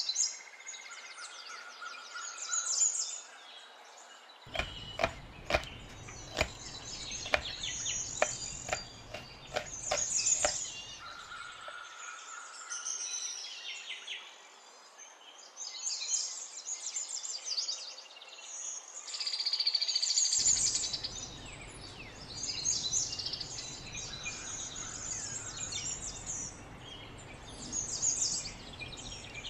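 Kitchen knife cutting food on a cutting board, a run of sharp knocks about two a second from about four to eleven seconds in. Birds chirp in the background throughout.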